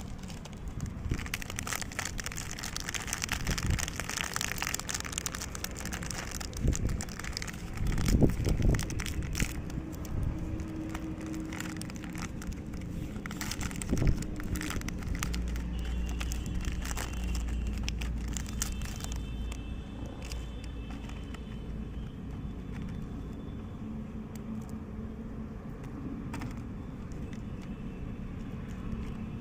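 Chocolate bar wrappers crinkling and crackling as they are handled and opened, densest over the first several seconds and then sparser, over a steady low background rumble.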